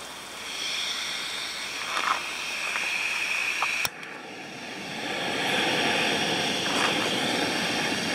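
Jetboil MiniMo canister gas stove burner running under its pot while heating water, a steady hissing rush. A sharp click about four seconds in, after which the burner noise builds up again.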